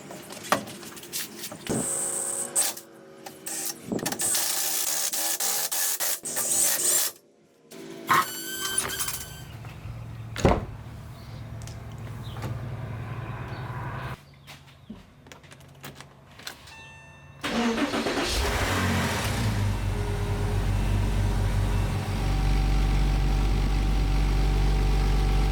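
Porsche 986 Boxster's 2.5-litre flat-six cranking and catching about two-thirds of the way in, then idling steadily. The start shows that the repaired automatic shift linkage no longer trips the neutral safety switch. It is preceded by assorted clicks and knocks.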